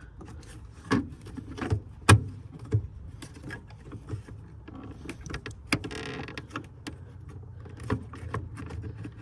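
Irregular plastic clicks and knocks, with a short scrape about six seconds in, as the rear cover of a 2013 VW Touareg headlamp is worked loose and pulled off.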